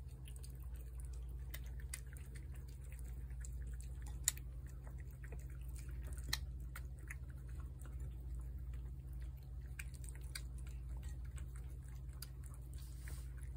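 A cat eating wet cat food off a plate: faint, irregular wet clicks of chewing and licking, over a steady low hum.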